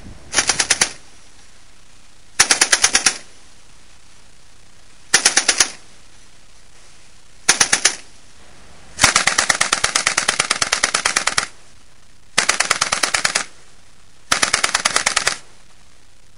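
Machine gun firing automatic bursts, seven in all, mostly short, one lasting about two and a half seconds.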